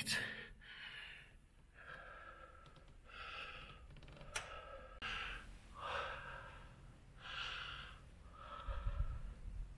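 A man breathing hard and quickly, about one breath a second, out of breath after climbing 177 tower steps. A low handling bump comes near the end.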